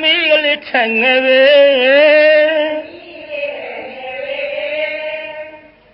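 A single voice chanting in long, melodic held notes that waver in pitch. It is loudest at first, turns softer about halfway through and fades out near the end.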